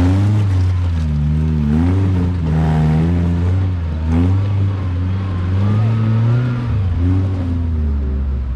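Suzuki Samurai off-roader's engine revving under throttle, its pitch rising and falling again and again, held high for a moment about six seconds in before dropping.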